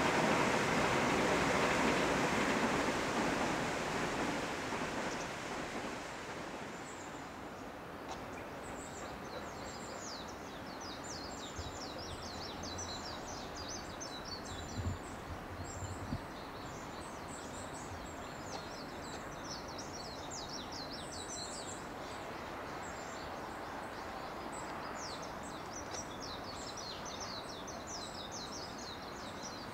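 A passing train's rumble fading away over the first few seconds. After that, rural outdoor ambience with many small birds chirping and twittering steadily, and two brief low thuds near the middle.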